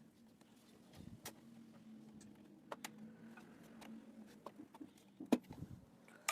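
Faint, scattered clicks and knocks of a graphics card being handled and fitted into a desktop PC case, the sharpest about five seconds in, over a low steady hum.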